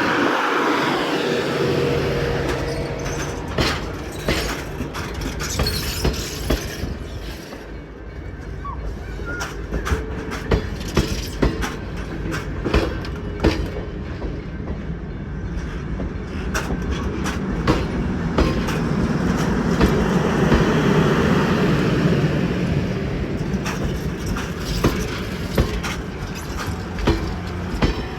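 Train rolling along the track: a steady rumble with many scattered clicks and knocks from the wheels and rail joints, swelling louder a little past the middle.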